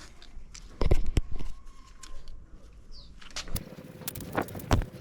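Handling noises of a repair: a cluster of sharp knocks and clicks about a second in, then a few more single clicks near the end, over a faint steady hum.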